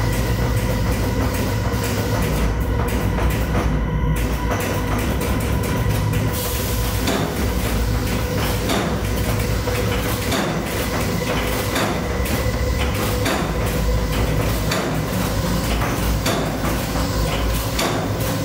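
Dark-ride car rumbling and rattling along its track, with many small knocks, over a steady electrical hum.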